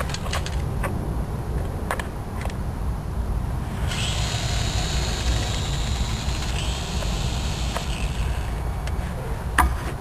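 High-pitched buzz of the Megatech Avion micro airplane's small electric motor and propeller, fading out early and coming back about four seconds in for several seconds, over a steady low rumble of wind on the microphone. A sharp knock sounds near the end.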